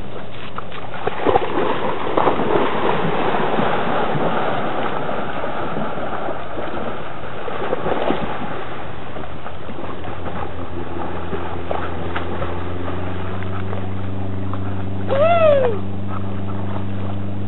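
Swimmers splashing in lake water, loudest in the first few seconds. From about ten seconds in, a motorboat's engine drone builds up steadily, and a short cry falling in pitch is heard near the end.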